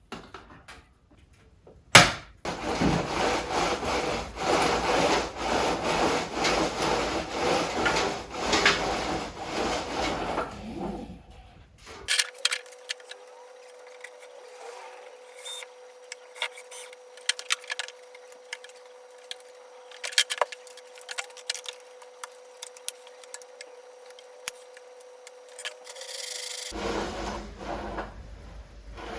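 Wood being sawn with a saw in repeated strokes for about nine seconds. A quieter stretch of scattered light clicks over a faint steady hum follows.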